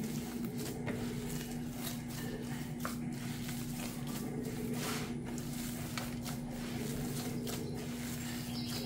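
Hand kneading a soft flour, salt and water dough in a bowl: irregular squishing and pressing, over a steady low hum.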